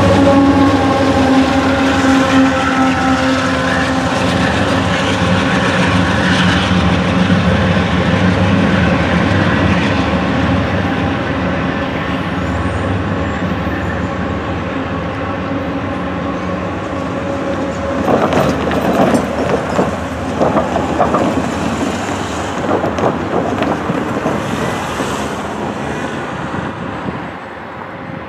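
CSX GE diesel locomotives (an ES44AH and a CW44AC) rolling past close by, their engines a steady drone that slowly fades. Later, a CSX CW44AC leading a coal train approaches, its wheels knocking in a quick series over the rail joints and switches.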